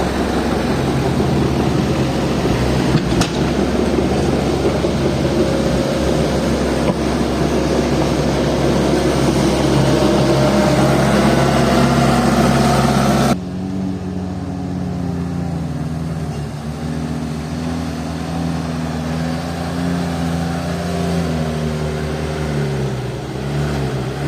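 Heavy diesel engines of an excavator and a dump truck running hard as the excavator pushes the sunken, tilting truck. About thirteen seconds in the sound cuts abruptly to a quieter engine note that rises and falls.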